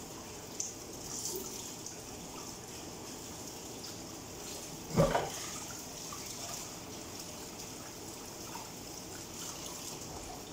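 Gloved hands working breadcrumbs onto a whole chicken in a bowl: faint, intermittent rustling, with a single thump about halfway through.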